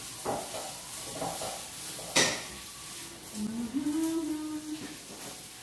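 Cookware and utensils knocking on a stovetop and counter, with one sharp metallic clank about two seconds in. Later a voice hums a held, slightly rising note.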